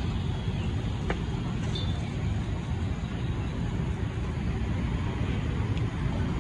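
Steady rumble of road traffic, with a single sharp click about a second in.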